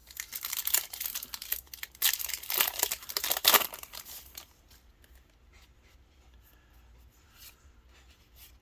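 Yu-Gi-Oh trading card booster pack wrapper being torn open and crinkled, for about the first four and a half seconds, then only faint handling.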